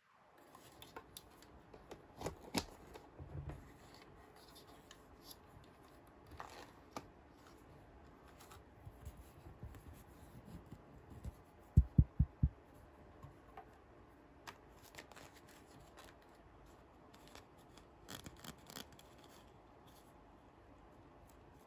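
Small handling sounds from unboxing a toy: scattered sharp clicks, snips and light rustles of plastic parts and packaging, with a quick run of four loud knocks about twelve seconds in.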